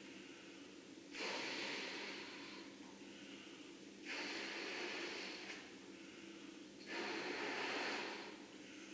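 Three breathy rushes of air, about one every three seconds, each starting suddenly and fading over a second or two, over a faint steady hum. They are most likely air blown to work the clown mask's inflatable balloon nose.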